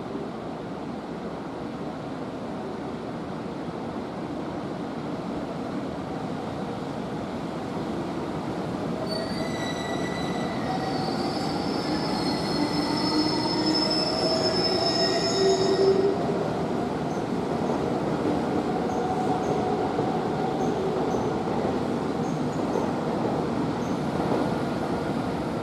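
EH500 electric locomotive hauling a container train rolling slowly past on the station track: a steady rumble that grows louder as the locomotive draws level, with a high metallic squeal from the running gear for several seconds in the middle.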